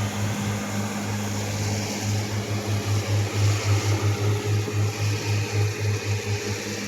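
An engine running with a steady low hum that pulses about five times a second, over a haze of mechanical noise.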